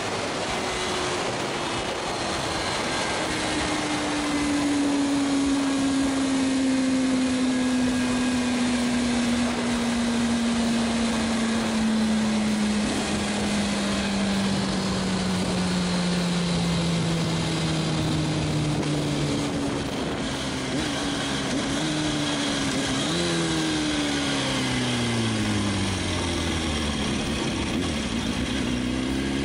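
Kawasaki Ninja ZX-6R 636's inline-four engine slowing down after a quarter-mile drag pass, its pitch falling steadily as the bike sheds speed. In the last third the revs jump and fall again several times as it is shifted down. Constant wind rush is heard throughout.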